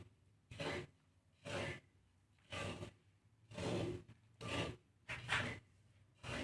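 A spatula stirring a pan of dry-roasting millet and seed mix, in rasping strokes roughly once a second.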